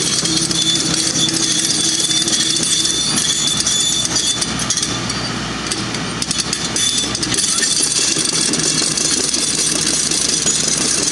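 Heavy road-repair machinery running steadily: an engine hum under a loud, constant hiss, easing off briefly about six seconds in.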